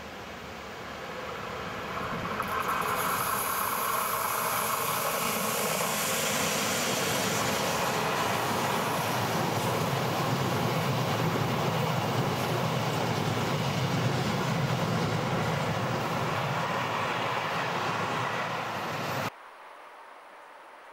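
Swiss Federal Railways (SBB) electric locomotive and container freight train passing close by: the train noise swells over the first couple of seconds, then the wagons rumble steadily past on the rails. It cuts off suddenly near the end, leaving only a faint background.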